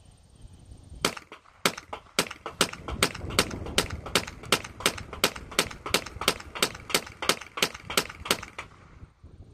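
GSG-16 .22 semi-automatic rifle firing Aguila Sniper Subsonic rounds in rapid succession. There are about twenty sharp shots at roughly three a second, starting about a second in and stopping shortly before the end. Every round cycles the action without a stoppage.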